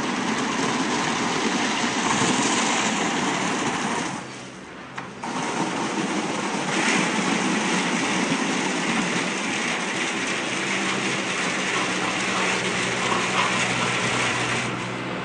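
Rollover car wash machine running: a steady rushing noise with a low motor hum underneath. It drops away for about a second around four seconds in, then comes back stronger.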